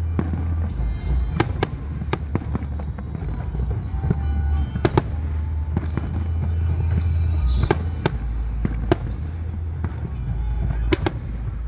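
Fireworks display: shells bursting in a string of sharp bangs, about ten, several coming in quick pairs, over a constant low rumble.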